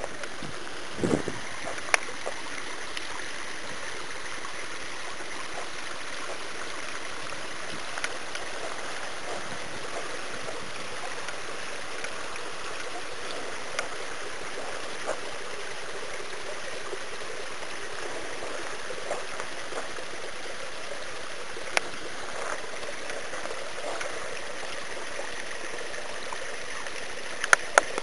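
Small garden rockery waterfall, water trickling and splashing down stone steps into pools: a steady, even rush of water, with a few short clicks now and then.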